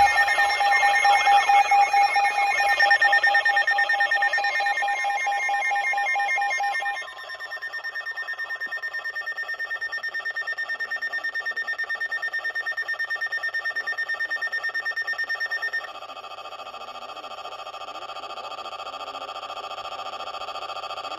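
Electronic emergency alert tones: a steady alert tone for the first several seconds, then a rapidly pulsing beep, then a different steady tone from about sixteen seconds in.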